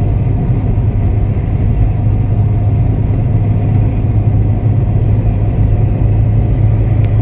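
Steady low rumble of a car on the move, with engine drone and road noise heard from inside the cabin.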